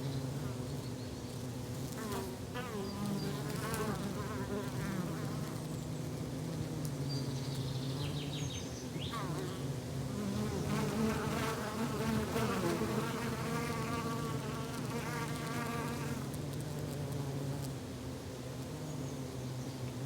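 Forest ambience of insects buzzing in a steady, slightly wavering drone, with short chirping calls scattered over it.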